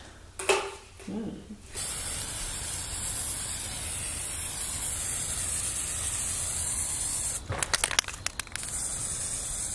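Aerosol spray-paint can spraying with a long steady hiss. About three-quarters of the way through comes a quick run of sharp rattles as the can is shaken, then the spraying hiss resumes.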